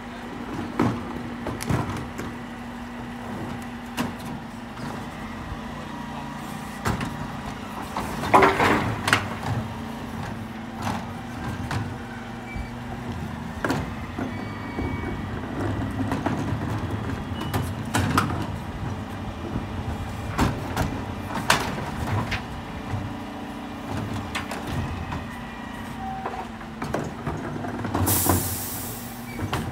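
Refuse lorry running at the kerb while black wheelie bins are loaded onto its Terberg OmniDex rear bin lifts: a steady engine hum under repeated knocks and clatters of plastic bins being hooked on, tipped and set down. There is a louder clatter about eight seconds in and a sharp hiss of air near the end.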